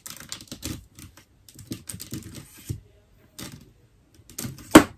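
Clicks and rattles of plastic and metal tripod parts being adjusted by hand, with one sharp, loud clack near the end.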